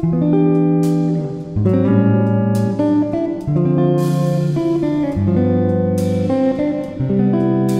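Background music led by strummed guitar chords, changing chord about every second or so.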